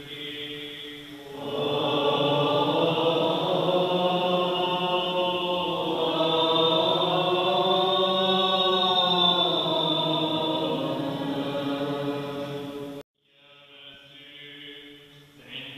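Byzantine-rite liturgical chant: sustained sung notes that swell about a second in and glide slowly up and down. It breaks off abruptly near the end at an edit and resumes more quietly.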